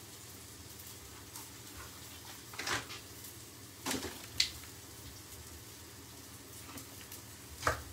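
A handful of light, scattered knocks and scrapes of a chef's knife and hand on a wooden chopping board as the seeds and pith of a bell pepper are cleared away, over a faint steady background.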